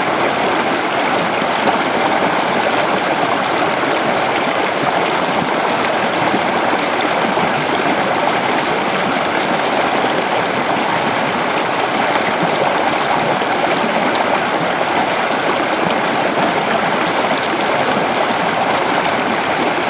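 Water flowing steadily in a stream, a constant rushing babble.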